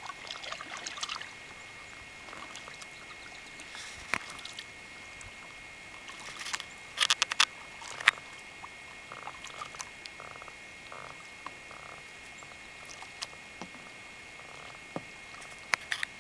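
Kayak paddling on calm water: soft splashes and drips as the paddle blades dip and lift, with a cluster of sharp clicks about seven to eight seconds in, over a faint steady high tone.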